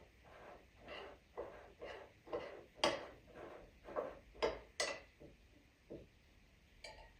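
Kitchen work: utensils and cookware being handled, an irregular series of light knocks and soft scrapes about twice a second, with three sharper clicks in the middle.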